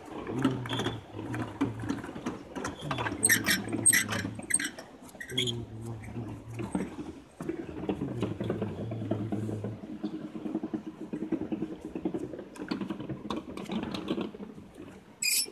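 A row of hand-spun Buddhist prayer wheels turning on their spindles, rattling and clicking as each is pushed round in turn. A low voice chants a repeated mantra over it in the first part.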